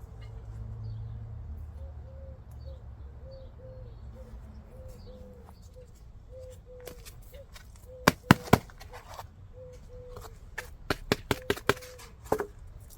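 A handful of sharp knocks or taps: two loud ones about eight seconds in, then a quick run of several near the end, over a faint low hum.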